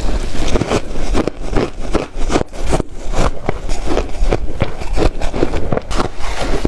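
Ice being bitten and chewed close to the microphone: a dense, irregular run of crisp crunches.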